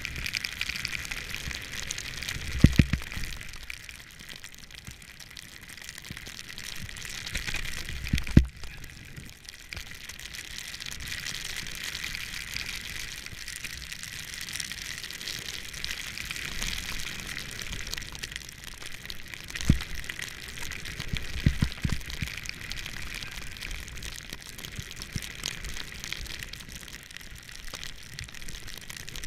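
Snowboard sliding through fresh powder snow: a steady hiss, with a few short low thumps scattered through it.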